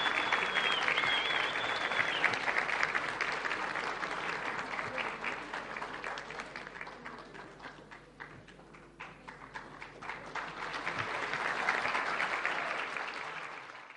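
Crowd applauding: dense clapping that thins to scattered claps about halfway through, swells again near the end, then cuts off abruptly.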